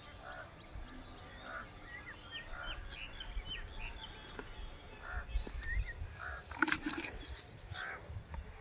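Outdoor ambience of small birds chirping in short rising and falling notes, over a low wind rumble on the microphone. A few louder, sharper calls or knocks come about seven seconds in.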